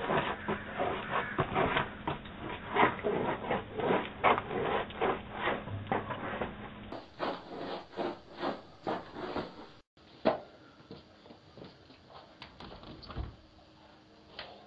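Footsteps crunching and scraping on an icy driveway, two to three short strokes a second, picked up through a Ring security camera's microphone; after about ten seconds they thin out to a single knock and a low thud.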